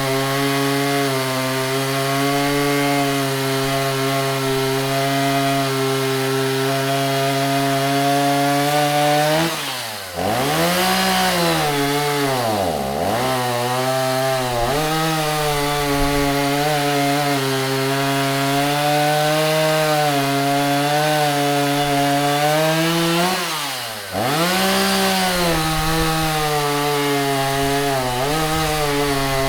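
Stihl MS 290 two-stroke chainsaw running at high revs, cutting wood. Twice the engine speed falls sharply and climbs back to full revs.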